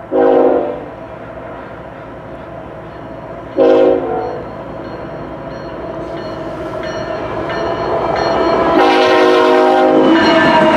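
GE ES44AC freight locomotive air horn sounding two short blasts a few seconds apart. A train's rumble then grows louder, and a longer, louder horn blast near the end is followed at once by another.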